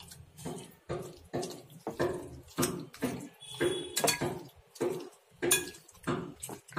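A metal spoon scrapes and clinks against a glass bowl while mixing raw chicken pieces in a yogurt marinade. The strokes come in a steady rhythm of about two a second.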